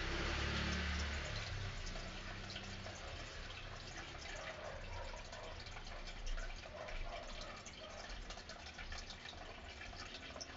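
Aquarium water trickling and bubbling, with many small pops and drips over a low steady hum. A louder wash of water noise in the first second or so settles into lighter trickling.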